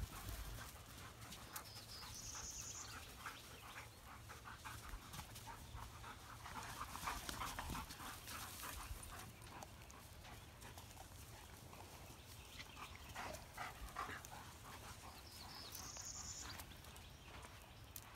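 Dogs panting faintly as they move about, with scattered light steps on sandy dirt. Two short high chirps, about two seconds in and again near the end.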